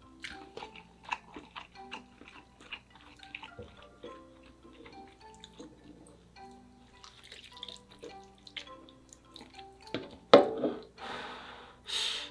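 Close-up wet eating sounds: small smacking clicks of chewing ramyeon noodles and soft tofu, under quiet background music. A loud slurp comes about ten seconds in, followed by a longer slurp near the end.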